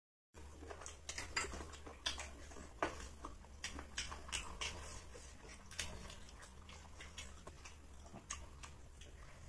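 Close-up eating sounds of hand-eaten biryani: irregular small wet clicks and smacks from chewing and from fingers working the rice on clay plates, over a steady low hum.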